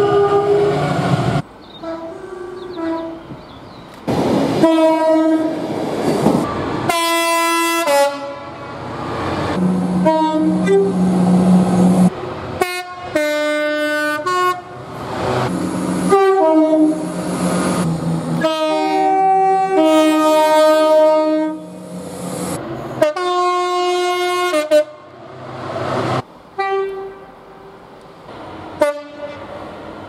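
Train horns sounded again and again by several different trains in turn, each a blast of one or two notes, with sudden cuts between clips and the rumble of the approaching trains between blasts.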